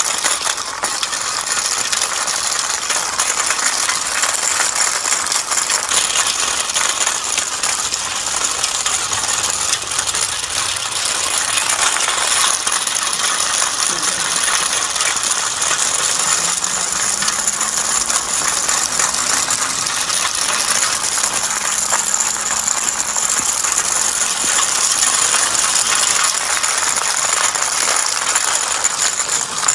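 A continuous, dense mechanical rattle, high and grainy, holding a steady level without a break.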